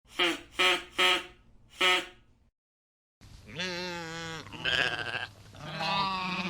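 Four short, sharp animal calls in quick succession, then after a brief pause, long wavering bleats from sheep or goats over a steady low hum.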